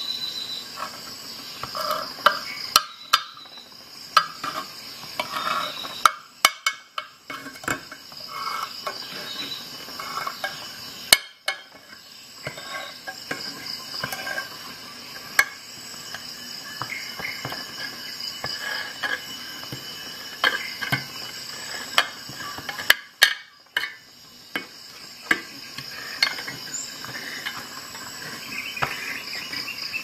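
Lever-type can-opener blade of a Ratnik 6E6 multi-tool being pried stroke by stroke around the lid of a tin can: irregular sharp metallic snaps and crunches, one every second or two and sometimes several in quick succession, as the blade cuts through the tinplate.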